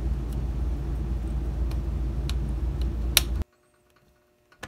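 Steady low background rumble with a few small clicks as the glued plastic and metal parts of a toy train tender truck are handled. The loudest click comes just before the rumble cuts off abruptly about three and a half seconds in. Then near silence, with faint ticks of handling.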